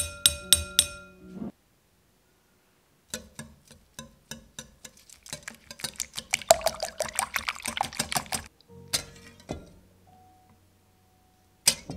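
Metal wire whisk beating eggs in a glass bowl: rapid clicking of the wires against the glass that speeds up and grows louder, then stops, with a couple of knocks after. A short run of ringing clinks opens it, and soft music plays faintly underneath.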